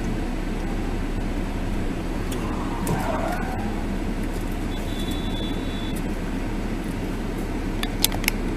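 Steady low hum of a car's engine and road noise heard inside the cabin through a dash cam's microphone. A short high beep sounds in the middle, and a few sharp clicks come near the end.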